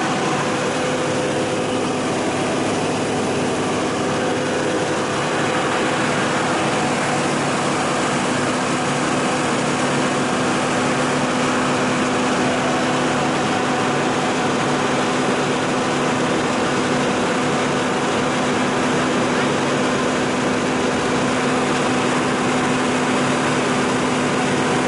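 Military water tanker truck's engine running steadily to drive its pump, with the constant hiss of water jetting from the overhead spray nozzle.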